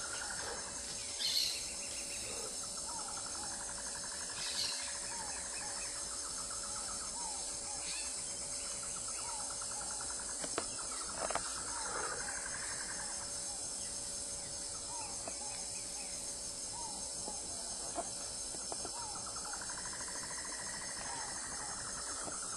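Steady high-pitched insect chorus of crickets or cicadas, with scattered short chirping and trilled calls over it and a couple of brief louder calls in the first five seconds.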